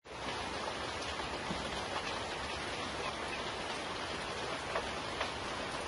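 Steady rain falling, an even hiss with a few faint drips.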